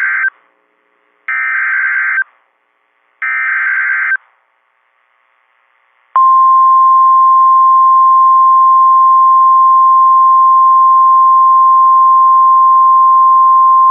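NOAA Weather Radio Emergency Alert System warning opening: SAME header data bursts of warbling digital tones, each about a second long with about a second between, with the end of the first and then two more. After a short gap, about six seconds in, the steady single-pitch 1050 Hz warning alarm tone starts, signalling that a warning message follows.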